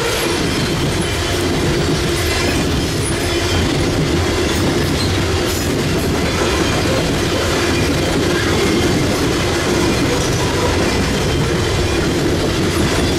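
Hopper cars of a loaded coal train rolling past close by, a steady noise of steel wheels running on the rails.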